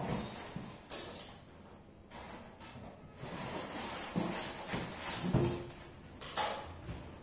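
Polystyrene foam packing tray scraping and rubbing against a cardboard box as it is lifted out, with irregular rustles, a brief squeak about five seconds in, and the box's cardboard flaps rustling.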